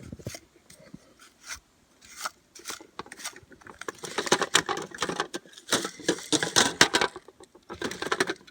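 Irregular clattering and rattling knocks as something is shaken hard to knock the snow off it, sparse at first and fast and dense a few seconds in.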